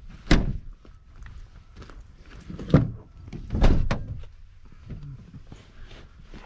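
Three thumps with rustling and handling noise between them, from movement inside a vehicle's cab.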